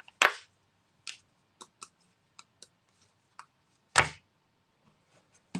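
Shashibo shape-shifting magnetic box being folded and turned by hand: its magnets snap its pieces together in scattered light clicks, with two louder clacks, just after the start and about four seconds in.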